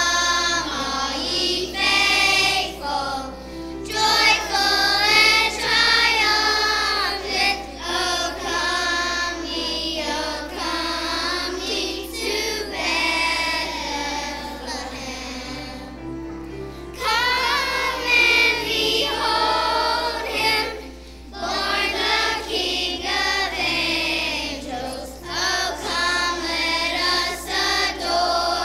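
Children's choir singing together, with a brief pause between phrases about sixteen seconds in.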